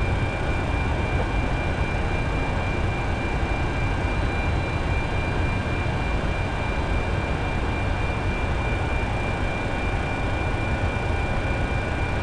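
Steady noise of a powered Boeing 747 Shuttle Carrier Aircraft's flight deck: a low rumble with a thin, steady high whine on top.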